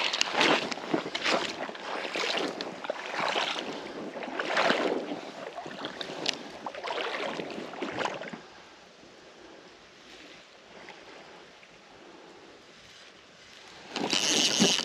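Legs wading through shallow creek water, sloshing in irregular surges about once a second, which stop about eight seconds in. Near the end a louder, steady rushing noise starts suddenly.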